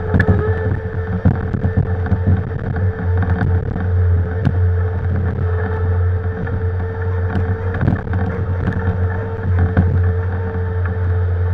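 Bobcat compact diesel machine running steadily at working speed, with a steady whine above the engine drone and scattered knocks of shale being dug and loaded.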